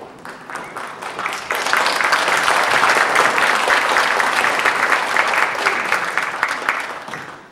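Audience applauding: many hands clapping, swelling about a second and a half in and dying away near the end.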